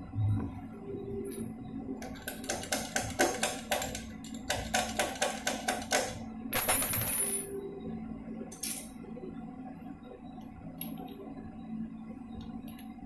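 Ratchet socket wrench clicking in two quick runs as it turns the nut on a motorcycle's magneto flywheel, which is held still by a flywheel holder tool. A sharp metallic clink follows, then one more click.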